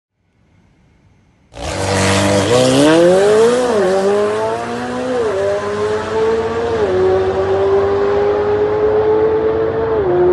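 McLaren 720S twin-turbo 4.0-litre V8 on stock turbochargers, launched hard at full throttle down a drag strip with a sudden loud start about a second and a half in. The engine pitch climbs through each gear with a short drop at every upshift, and the sound grows duller as the car pulls away.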